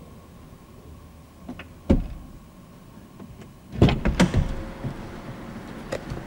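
Automatic rollover car wash heard from inside the car: one sharp thump about two seconds in, then a quick cluster of knocks and clunks about four seconds in, followed by a steady hiss.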